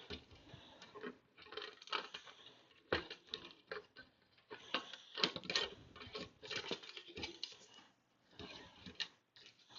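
Electrical wires being pushed into a recessed can light's junction box: faint, irregular rustles, scrapes and small clicks of handling.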